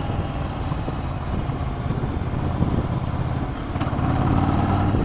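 Yamaha Virago V-twin motorcycle engine running, getting louder about four seconds in.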